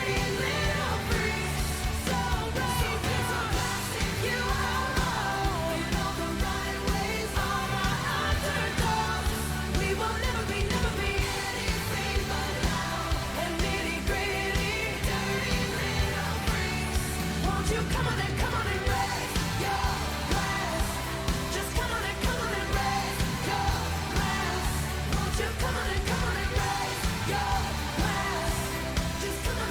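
Background pop music with a sung vocal and a steady beat.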